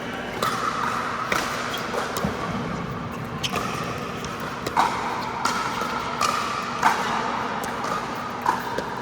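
A pickleball rally: about eight sharp hits of paddles striking the plastic ball, roughly one a second, each with a short ringing tail.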